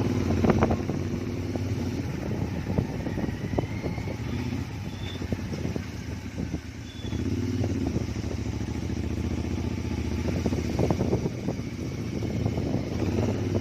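Royal Enfield GT650's parallel-twin engine running through a Gursewak aftermarket exhaust while riding, with short sharp cracks scattered throughout. The engine note eases off about six seconds in and picks up again a second later.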